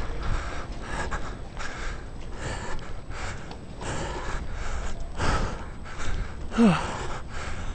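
A man panting heavily, rapid gasping breaths in and out, with a short falling groan near the end: out of breath from exertion at high altitude.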